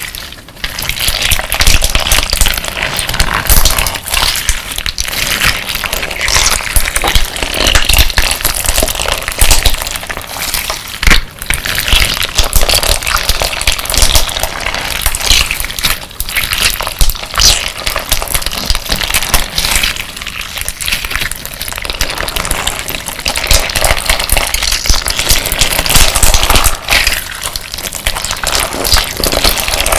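Slime packed with crystal glass decorative stones being squeezed and kneaded close to the microphone: a dense, continuous crunching and clicking of the glass pieces grinding against one another, with wet squelches from the slime.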